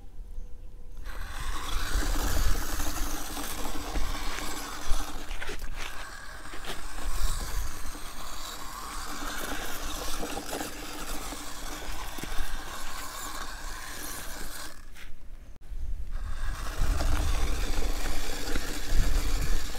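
Homemade RC model jeep driving over a dirt path: its high-speed electric gear motors whirring and its wheels scraping and crunching over the dirt. The sound stops for a moment about fifteen seconds in, then starts again.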